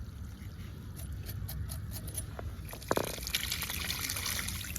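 Water trickling and splashing, with a few light clicks early on and a short knock about three seconds in, after which the splashing grows denser.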